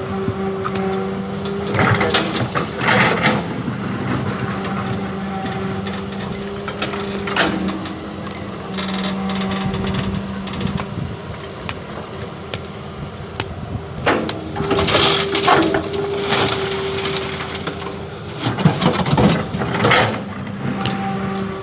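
Radio-controlled model excavator working as it digs soil: its small pump motor hums steadily, shifting pitch now and then, with several bursts of clatter and scraping as the arm and bucket move.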